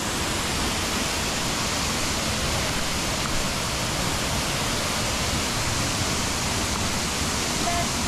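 A waterfall plunging into its rock pool: a steady, even rush of falling water.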